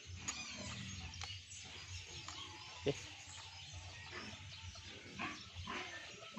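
Faint farm animal calls in the background, with one sharp plastic click about three seconds in as the cover over the brush cutter's carburettor and primer bulb is snapped into place.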